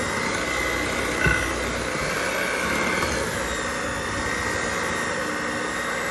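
Hamilton Beach electric hand mixer running steadily, its beaters whipping royal icing in a glass bowl, with one short knock about a second in.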